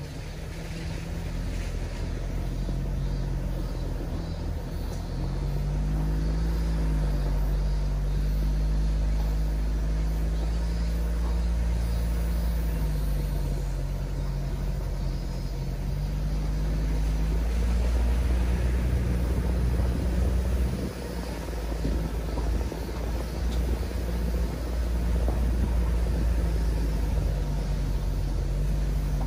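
Mitsubishi Delica D:5's four-cylinder clean-diesel engine running under way, over a deep, steady road rumble. The engine note rises about six seconds in and eases back down over the following several seconds.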